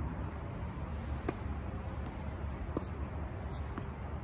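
Tennis ball being hit in a rally: a sharp pop about a second in, then two fainter pops about a second apart, over a steady low outdoor background.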